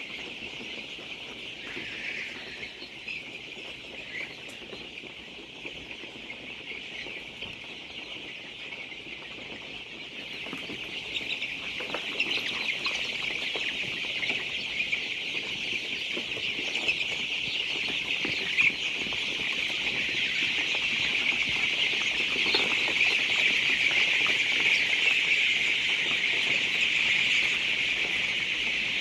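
A large flock of chickens in a poultry shed, many birds calling at once in a dense, continuous chatter that grows louder about halfway through.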